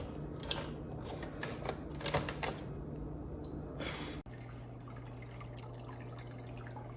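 Irregular light plastic clicks and handling noises. Then, after a sudden break about four seconds in, an aquarium filter runs: a steady low hum under the even rush of water pouring from its outflow.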